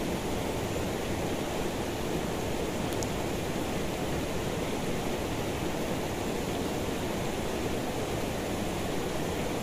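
Steady rushing of flowing river water, even and unbroken.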